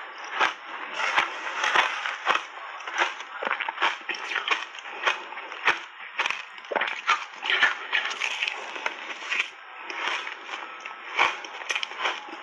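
Shaved ice being chewed in big bites: a dense, irregular run of crunches, several a second.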